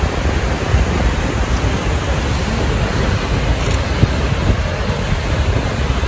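Steady roar of a waterfall, with wind buffeting the microphone in a low rumble.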